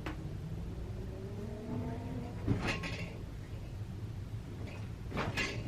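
Two brief scuffing, knocking noises from hands-on chiropractic work on a patient's leg on a treatment table, the first preceded by a short rising squeak, over a steady low hum.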